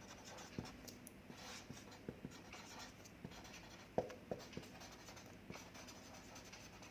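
Handwriting: a pen moving in short scratchy strokes, with a few light taps, the sharpest about four seconds in.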